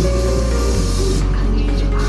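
Background music with held notes and a low bass line that changes note about three-quarters of a second in.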